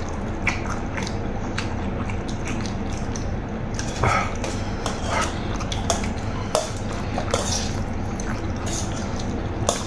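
Metal spoon clinking and scraping on a metal tray while eating rice, a few scattered clicks over a steady low background hum.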